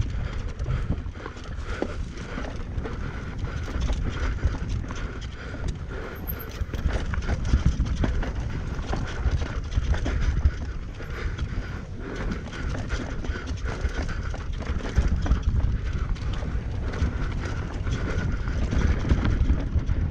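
Mountain bike descending a rough trail at speed: continuous rattling and irregular knocks from the bike and tyres over rocks and roots, with wind rumbling on the microphone.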